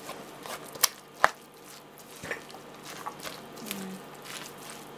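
Shredded chicken, vegetables and mayonnaise being mixed in a stainless steel bowl: soft wet squishing, with two sharp clicks a little after a second in.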